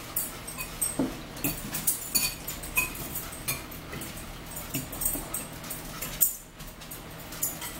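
Forks clinking and scraping against ceramic salad bowls and plates in many short, irregular clinks, some ringing briefly, with close-up chewing of salad. A faint steady hum lies underneath.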